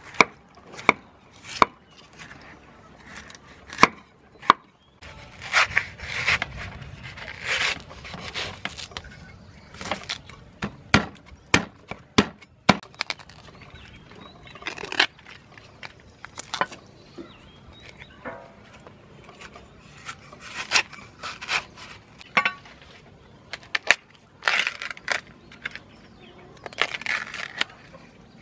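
Cleaver striking a wooden chopping block while cutting fresh bamboo shoots, irregular sharp knocks, mixed with the rasping tear of the shoots' husks being peeled off by hand.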